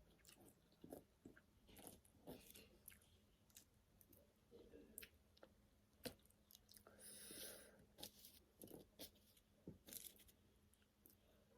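Faint close-up mouth sounds of a person eating spicy Korean noodles and fried eggs: soft chewing with scattered small clicks, and a brief hissy sound about seven seconds in.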